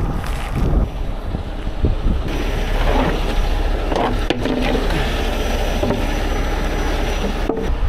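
Heavy rotator tow truck's diesel engine running steadily, with scraping and knocking as gear is handled at the truck's rear.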